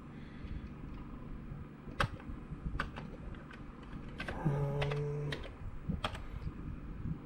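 Keys being pressed one at a time on a Commodore 64 keyboard: separate, unevenly spaced clacks as text is typed in.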